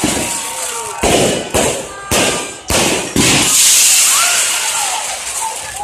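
Fireworks going off: five sharp bangs roughly half a second apart, then a long hissing crackle with thin whistles gliding in pitch.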